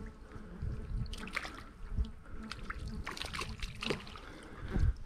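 Shallow water sloshing and trickling around a wire-mesh fish basket full of live fish as it is dragged through the water, with scattered small splashes.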